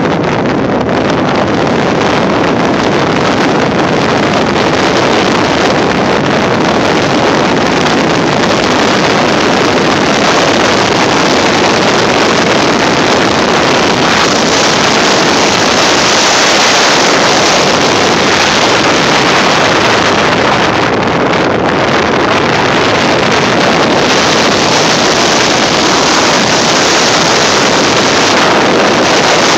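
Loud, steady rush of wind and road noise from a moving car, with wind buffeting the phone's microphone.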